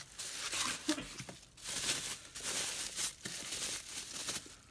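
Product packaging being opened by hand: irregular crinkling and rustling of wrapping.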